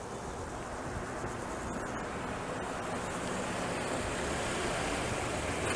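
A Kia Soul pulling in slowly: a steady hiss of tyres and engine that grows gradually louder as the car comes closer.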